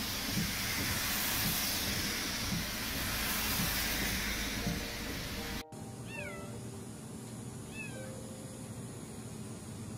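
Heavy downpour hissing on a car, then an abrupt cut to a kitten trapped inside an air conditioner's outdoor unit meowing twice, two high thin calls about a second and a half apart.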